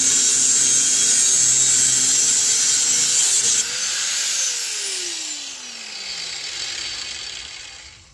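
Angle grinder cutting through a steel exhaust pipe, a loud, high-pitched grinding. A few seconds in it is switched off and the wheel winds down, its whine falling in pitch and fading over about four seconds.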